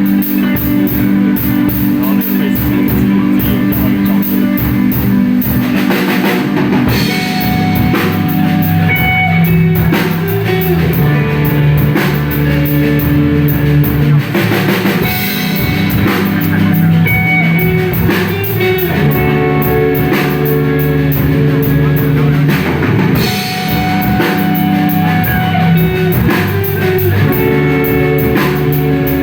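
Live rock band playing: drum kit, electric guitars and electric bass, with bass notes changing every second or two under a steady drum beat.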